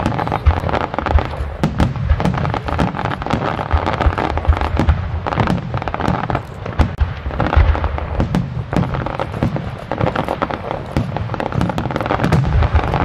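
Aerial fireworks shells bursting one after another: deep booms in close succession, with many sharp pops and crackles between them.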